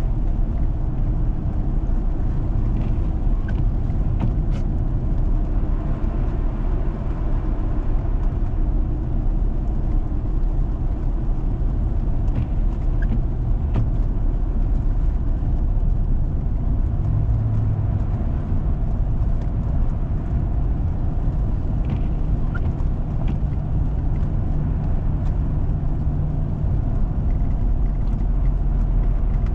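Four-wheel-drive vehicle driving on a snowy road: a steady low rumble of engine and tyre noise, with an engine hum coming through more clearly in the second half and a few faint ticks.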